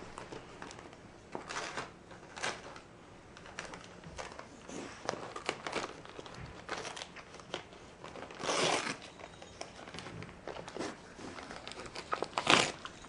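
Gift-wrapping paper crinkling and rustling in short bursts as a Siberian husky noses and paws at a wrapped present, with a longer, louder crackle about two-thirds of the way through and a sharp, loud one near the end.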